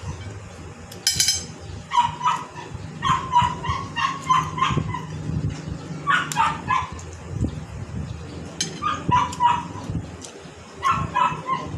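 A dog barking in short runs of quick yaps, about five volleys a second or two apart.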